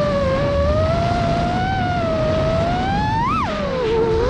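Racing quadcopter's four T-Motor F40 Pro IV brushless motors whining with their pitch slowly climbing. About three seconds in there is a sharp throttle punch, then the whine drops low as the throttle is chopped while the quad rolls over. Heard from the onboard GoPro, with a low wind rumble underneath.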